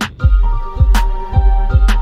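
Electronic music with a deep bass beat and held synth notes, and a sharp clap about once a second. Just after the start, a fast run of hi-hat ticks gives way to the bass beat.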